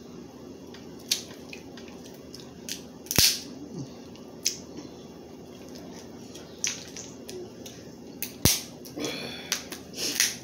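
Crab leg shells cracking and snapping in scattered sharp cracks, the two loudest about three and eight and a half seconds in, with a short run of wet eating noises near the end.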